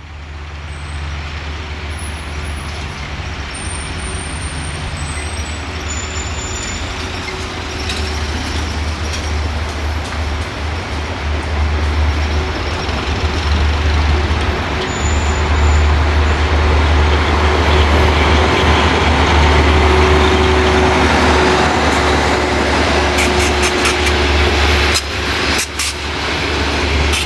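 CFR class 82 diesel-hydraulic locomotive with a Caterpillar engine approaching and running past, its diesel giving a deep steady drone with a steady whine above it. It grows louder as the locomotive nears, and the coaches roll by with rail clatter near the end.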